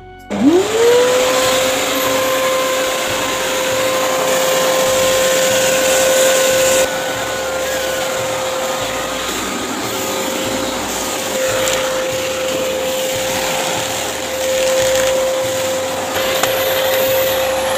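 Canister vacuum cleaner switched on: its motor whine rises quickly to a steady pitch and keeps running, with the rush of suction as the floor nozzle is pushed over carpet. It drops slightly in loudness about seven seconds in.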